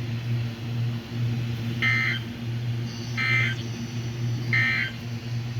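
Emergency Alert System end-of-message data bursts on NOAA Weather Radio: three short digital squawks about a second apart that close a warning broadcast, over a steady low electrical hum.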